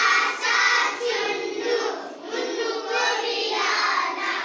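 A class of young children singing a Hindi children's song together in unison, their many voices blended rather than one clear voice.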